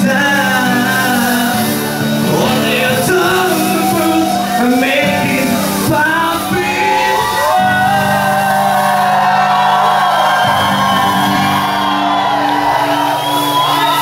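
Loud live concert music with singing over held low synth notes, and shouted vocals.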